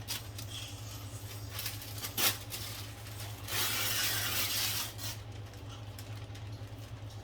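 Kitchen handling noises: scattered small clicks and one sharp clack about two seconds in, then a rustling noise for about a second and a half, over a steady low hum.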